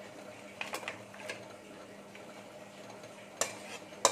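Metal cookware clinking and scraping as a cooked vegetable curry is poured and scraped out of an aluminium wok into a steel bowl: a few light clinks, then sharper clinks near the end.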